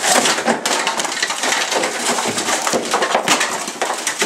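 A kitchen being smashed up: continuous crashing and splintering of wood, with many sharp impacts.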